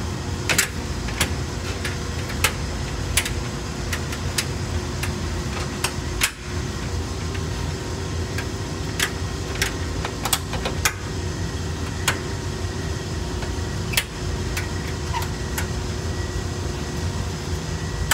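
Steady low hum of a rooftop HVAC unit running, with irregular sharp clicks and knocks, about one a second at first and fewer after the middle.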